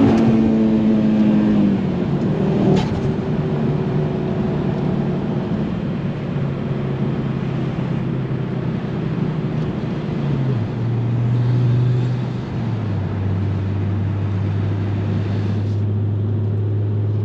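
Ford Focus RS Mk2's 2.5-litre turbocharged five-cylinder engine under way: it pulls hard for the first two seconds, then eases off with a single sharp crack about three seconds in. It settles into a steady cruising drone that drops in pitch in two steps, near the middle and again after about twelve seconds.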